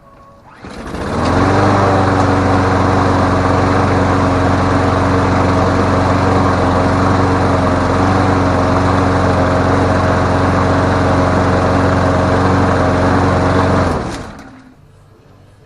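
Briggs & Stratton engine on a Murray mower starting about a second in, running steadily at an even speed, then shut off near the end and winding down. It is running after its no-start fix and service.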